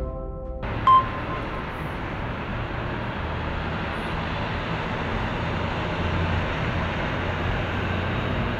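Steady distant road traffic rumble, with one short, loud high beep about a second in.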